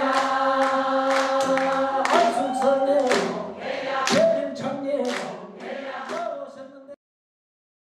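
Korean traditional singing in held, wavering notes over sharp plucked or struck accompaniment strokes. The music cuts off abruptly about seven seconds in.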